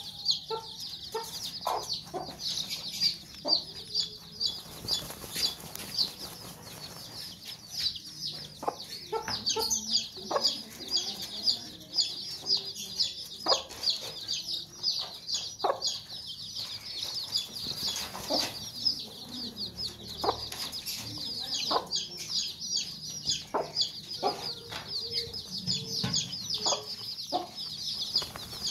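A brood of young chicks peeping constantly in a dense, high-pitched chorus, with the mother hen giving short clucks here and there as the chicks crowd under her.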